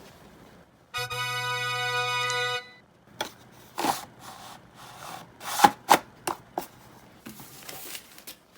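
A steady, unwavering musical tone held for about a second and a half, followed by a string of short knocks and clicks.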